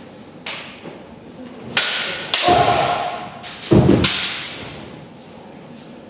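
Kendo sparring: sharp clacks of bamboo shinai striking, heavy foot stamps on a wooden floor, and two drawn-out kiai shouts in the middle that ring on in the hall.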